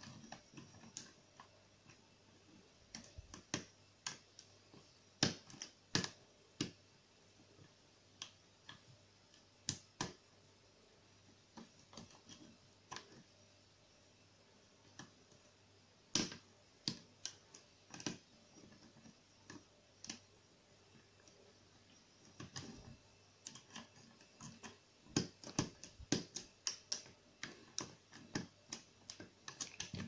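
Lock pick clicking and scraping against the pins of a brass Arrone pin-tumbler cylinder lock under tension: irregular sharp metallic clicks, sparse in the middle and coming thick and fast over the last few seconds.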